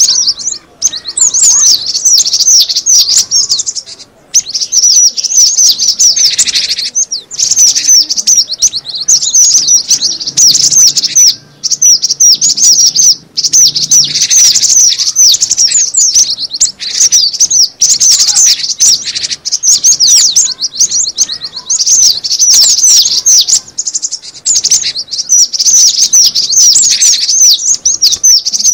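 Cinereous tit (gelatik batu) lure call: a dense, continuous, high-pitched chattering of rapid chirps, breaking off briefly a few times.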